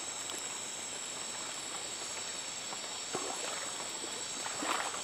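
Night insects chirring in a steady high-pitched chorus, with a few soft knocks and rustles about three seconds in and again near the end.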